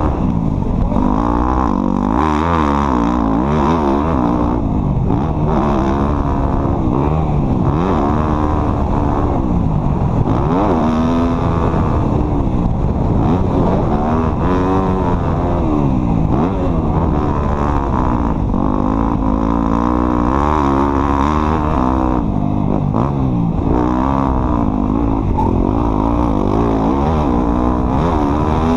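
An off-road vehicle's engine being driven hard, its revs rising and falling over and over every second or two.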